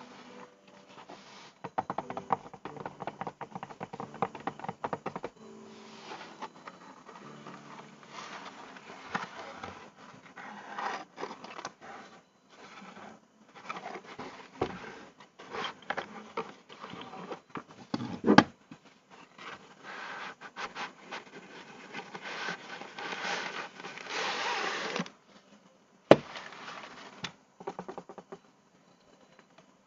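Handling noise from a monopod/tripod being unboxed: irregular scraping, rustling and small clicks of plastic and packaging, with two sharp knocks, one a little past the middle and one near the end.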